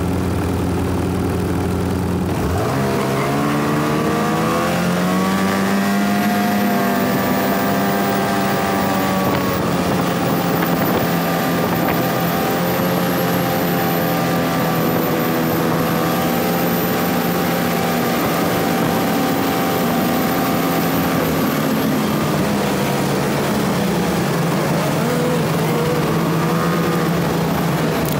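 An engine running. Its pitch climbs about two seconds in, then holds fairly steady with slow small rises and falls.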